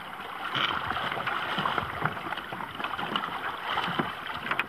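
Sea water sloshing and splashing irregularly around a wading man and the large tarpon he is holding alongside him.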